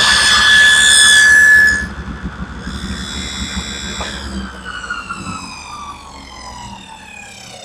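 Table saw cutting through wood under load with a steady whine. It cuts out about two seconds in, and the blade then coasts down with a slowly falling whine after the saw is switched off.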